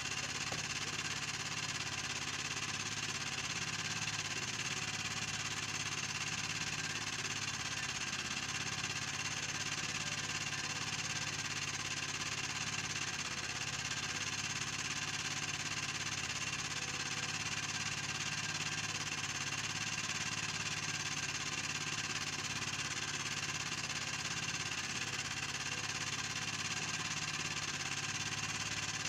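A small engine on an outrigger fishing boat running steadily at an even speed, a constant drone with no change in pitch.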